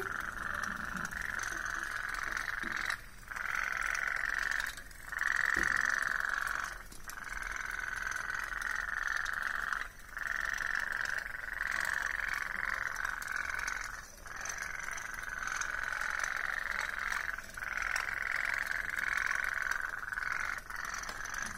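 Tin pop-pop toy steam boat putt-putting as it runs, a steady rapid buzz that breaks off briefly several times. Its wick-heated boiler is turning water to steam and pushing it out of the two pipes in pulses.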